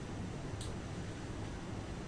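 Room tone: steady low hiss with one faint short click about half a second in.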